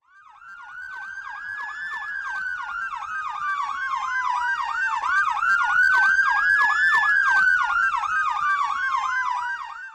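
Fire engine sirens sounding together: an electronic siren yelping rapidly, about three sweeps a second, over a second siren wailing slowly up and down twice. The sound fades in, grows louder, and cuts off just before the end.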